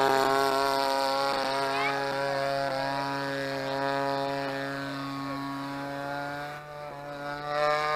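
DLE 20cc single-cylinder two-stroke petrol engine of a radio-controlled Sbach 342 aerobatic plane, fitted with a 26cc chainsaw carburettor, running at a steady pitch in flight. It grows fainter as the plane draws away, drops off sharply about six and a half seconds in, then comes back louder at the end.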